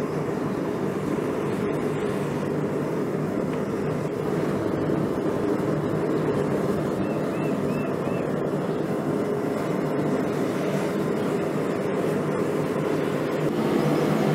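Forge burner running with a steady, even rush while a copper pipe fitting is heated in it for annealing.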